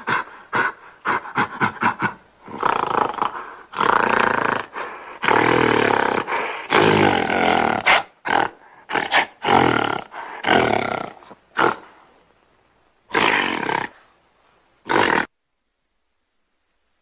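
Gorilla vocal sound effects: a quick run of short panting grunts, then a series of long, loud roars broken by shorter grunts, ending about fifteen seconds in.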